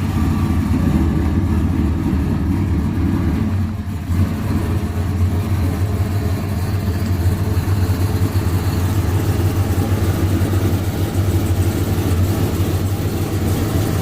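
Vehicle engine running steadily at a loud, low pitch, dipping briefly in level about four seconds in.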